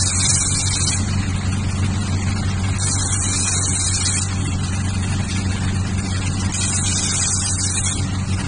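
Laser spot welder firing on the terminals of LiFePO4 battery cells: three hissing bursts of about a second and a half each, roughly every three and a half seconds, over the machine's steady low hum.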